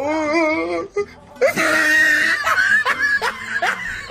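Hard laughter: a long, wavering, high-pitched laugh, a short break about a second in, then breathy bursts of laughter with short rising yelps.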